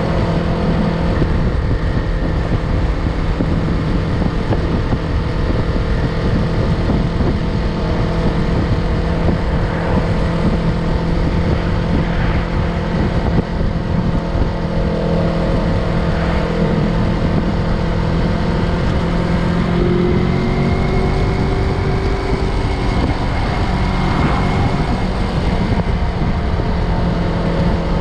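Yamaha MT-03 motorcycle engine running at a steady pitch while riding, under a constant rush of wind and road noise.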